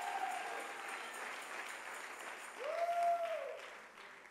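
Church congregation applauding and cheering in response to a call for a shout of praise, with a voice calling out over the clapping about three seconds in; the applause dies away toward the end.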